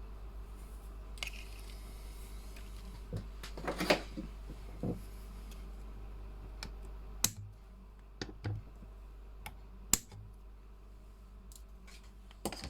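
Scattered small clicks and taps of tools and small parts being handled on a workbench during soldering work, over a steady low hum that drops in level about halfway through.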